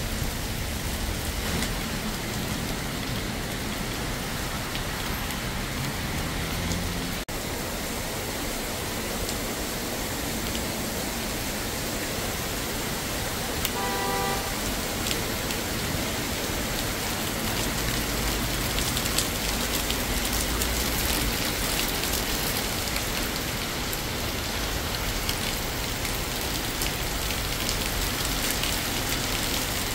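Steady rain and traffic hissing on a wet road, with a short two-tone car horn beep about halfway through and a heavier vehicle passing a few seconds later.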